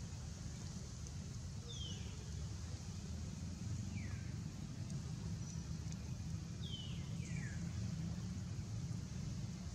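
Three short, high-pitched animal calls, each gliding downward, spaced a couple of seconds apart, over a steady low rumble.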